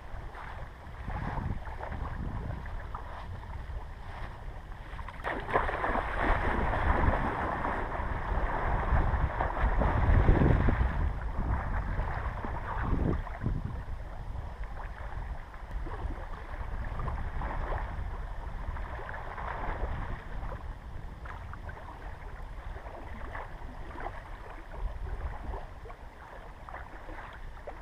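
Lake water splashing as a person wades in, loudest from about five to eleven seconds in, then small waves lapping at a sandy shore. Wind buffets the microphone throughout with a low rumble.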